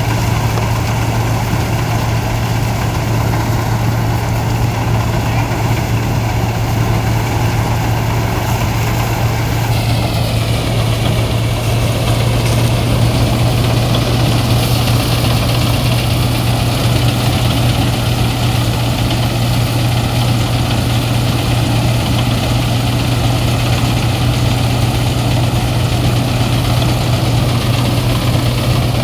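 Rice threshing machine running steadily with a strong low hum, getting noisier about ten seconds in. It makes a sound that the owner says is like a machine about to break down, though it keeps working.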